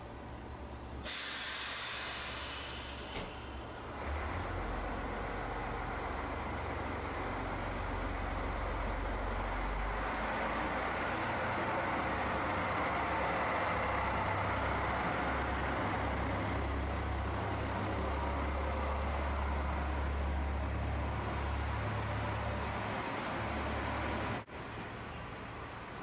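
Diesel railcar on the Dosan Line: a hiss of air for about two seconds, then the train's low engine rumble and running noise building and holding steady, cut off suddenly near the end.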